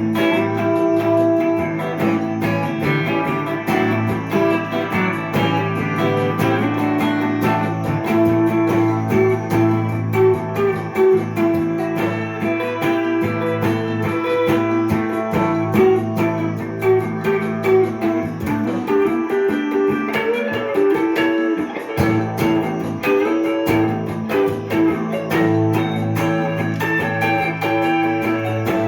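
Gibson ES-339 Custom semi-hollow electric guitar playing an improvised melody with a jazzy tone and Indian colouring, over a sustained low drone. The drone drops out briefly about two-thirds of the way through.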